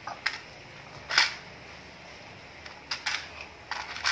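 A few short clatters and rustles of plastic toys being handled, a toy dinosaur knocking against plastic dump trucks loaded with small plastic gems. The loudest comes about a second in.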